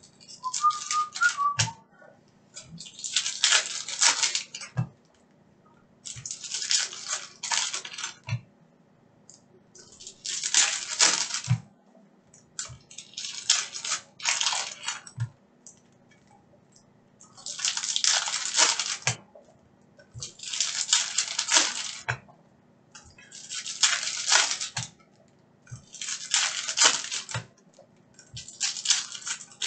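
Trading-card pack wrappers crinkling and tearing, and cards being shuffled through and set down on a table, in about ten bursts roughly every three seconds, most ending with a soft knock.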